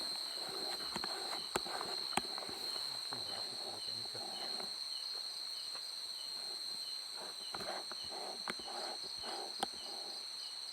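Night insects, crickets, trilling in a steady high chorus, with a softer chirp repeating about twice a second. A few sharp clicks stand out.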